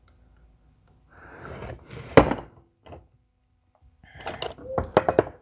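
Tools and metal parts being handled on a workbench: a loud sharp click about two seconds in, then a quick cluster of knocks and clicks near the end.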